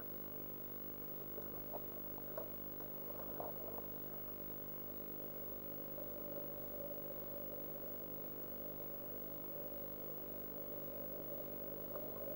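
Steady electrical hum and hiss, with a few faint short ticks in the first four seconds.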